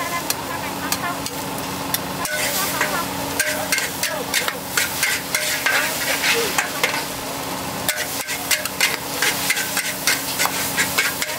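Metal spatula scraping and clanking against a wok as char kway teow noodles are stir-fried, over a steady sizzle of frying. The clanks are irregular and come faster in the second half.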